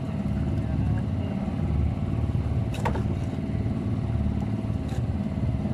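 Small engine running steadily with a low, even throb. There is one sharp click about three seconds in.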